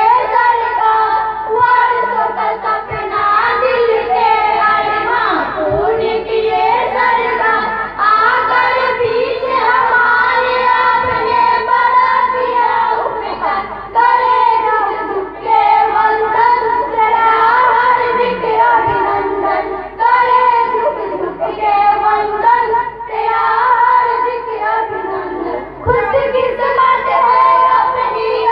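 A group of young schoolgirls singing a welcome song (swagat gaan) together, one melody line carried in phrases with a brief pause for breath about every six seconds.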